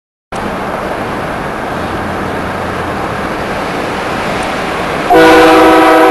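Steady noise of a truck driving. About five seconds in, a truck-mounted train horn blasts a loud chord of several tones.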